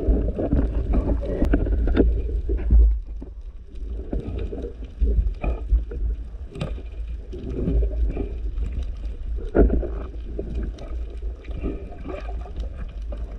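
Muffled underwater sound picked up by a submerged camera: an uneven low rumble of moving water with scattered sharp clicks and knocks.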